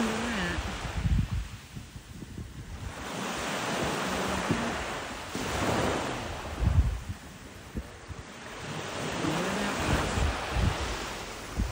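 Small waves breaking and washing up a sandy beach, the surf swelling and fading twice, with wind gusting on the microphone in low thumps.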